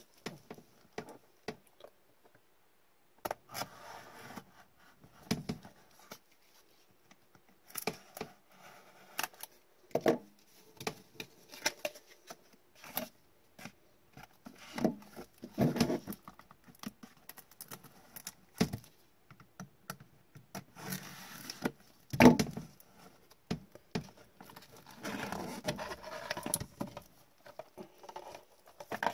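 Gloved hands handling trading cards and hard clear plastic card holders: scattered rustling, scraping and light clicks of card and plastic, with one sharper knock partway through.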